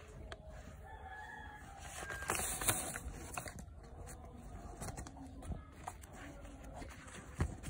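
A non-woven shopping bag and the product packaging being handled: rustling and shuffling with scattered taps and knocks, the sharpest about two and a half seconds in and again near the end.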